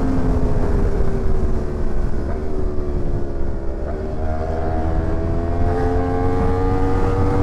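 Sportbike engine running under way, its pitch sagging slowly for the first few seconds and then climbing again toward the end, over a steady low rumble.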